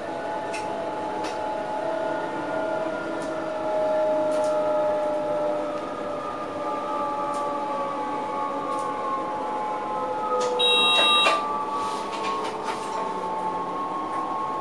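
Inside the cab of an NS SLT electric multiple unit: the traction drive whines in several steady tones that slide down in pitch as the train slows alongside a station platform, over running rumble and scattered clicks from the wheels. About ten and a half seconds in, a short electronic beep sounds in the cab for under a second.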